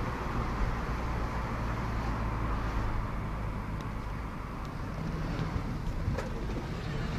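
Car engine and road noise heard from inside the cabin of a moving car: a steady low hum with tyre and wind hiss, the engine note getting a little stronger about five seconds in.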